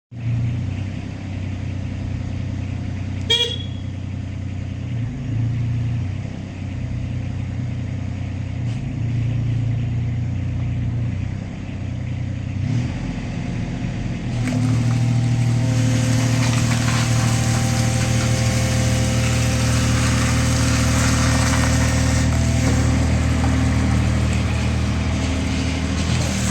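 2017 Wacker Neuson EZ28 mini excavator's diesel engine running at idle, with a short beep about three seconds in. About halfway through the engine speeds up and runs louder, with a steady whine over it as the hydraulics work.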